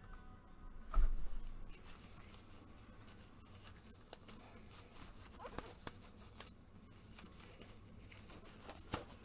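Trading card boxes and packs being handled and opened: a thump about a second in, then scattered rustling, crinkling and tearing of wrapper, with sharper crinkles later on.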